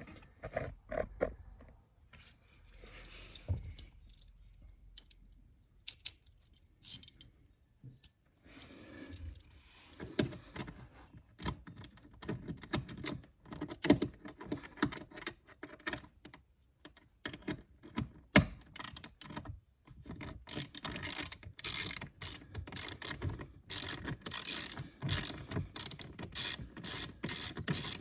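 Hand ratchet clicking as it backs out the fasteners of a lower dash panel, in a quick even run of about three clicks a second starting about two-thirds of the way in. Before that, scattered clicks and knocks of tool and trim handling.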